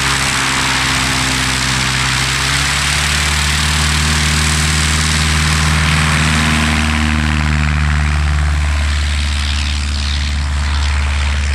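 Piper Super Cub light aircraft's piston engine and propeller running at high power, a loud steady drone with a strong rushing sound over it. About two-thirds of the way through, the rushing sound eases while the engine drone carries on.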